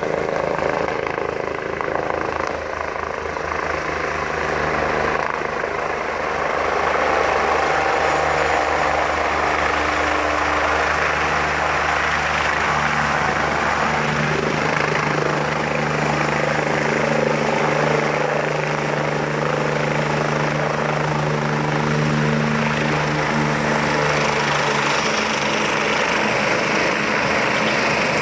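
Eurocopter EC145 twin-turbine helicopter coming in to land and running on the helipad: steady rotor beat with a high turbine whine. One low tone in the sound drops out near the end.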